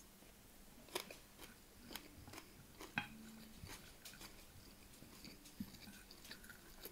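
Quiet eating sounds: soft chewing and a wooden spoon scraping and tapping on a plate of rice, heard as a few faint clicks about a second apart.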